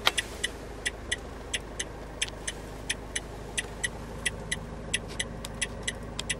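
Renault Trafic's hazard warning flasher ticking steadily, about four clicks a second as the lamps switch on and off.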